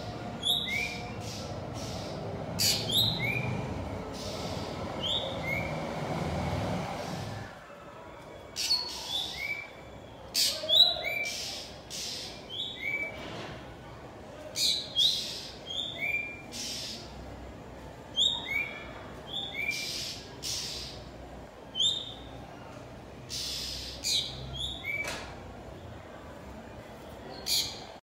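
Black drongo calling: a string of short, sharp whistled notes and quick chirps, one every second or so, over a low steady hum that stops about seven seconds in.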